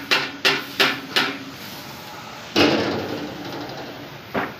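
Metal being hammered rapidly, about three ringing strikes a second, stopping about a second in. Then a loud crash with a long rushing tail, and a single sharp knock near the end.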